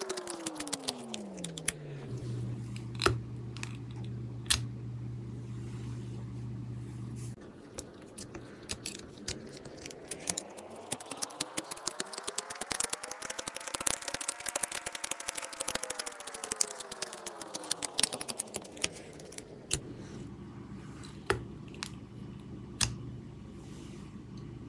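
Palette knife tapping and smearing through thick paint: a quick, uneven run of small clicks and taps. A low steady hum sits under the first few seconds and comes back near the end, and a pitched tone slowly rises and then falls in the middle.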